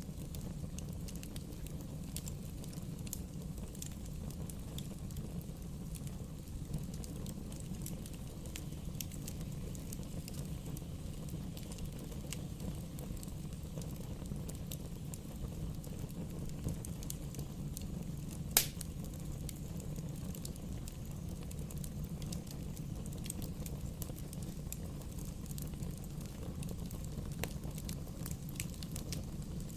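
Bonfire burning: a steady low rumble of flames with scattered crackles and pops from the burning wood, and one sharp, much louder pop about two-thirds of the way through.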